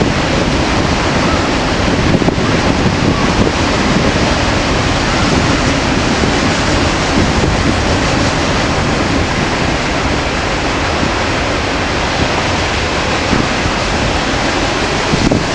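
Steady rushing noise of wind buffeting the microphone, mixed with the low rumble of a freight train of boxcars and trailers rolling past.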